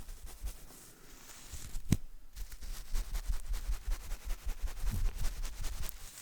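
Paintbrush bristles squeezed and rubbed between fingers close to the microphone, giving a dense, fine crackling rustle with one sharp click about two seconds in. The sound stops near the end.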